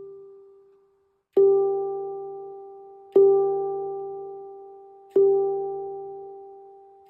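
Handpan tone field struck repeatedly with a finger, sounding the same note each time: a soft, quickly fading strike at the start, then three strong strikes about two seconds apart, each ringing out and slowly dying away.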